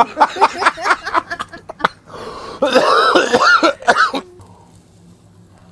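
A man laughing hard in quick pulses, breaking into coughing; it stops about four seconds in.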